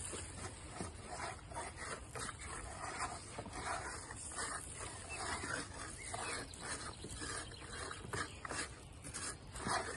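A hand scraping empty seed husks out of a wooden bird feeder's tray, a dry, irregular rustle and crackle as the husks are swept along the wood and patter down.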